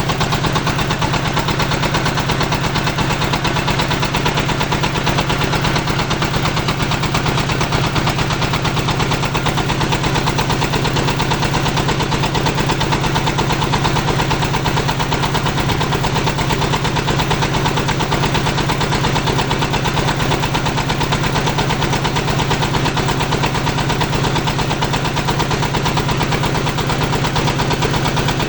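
22 HP diesel engine of a portable water well drilling rig running steadily, with a fast, even chugging.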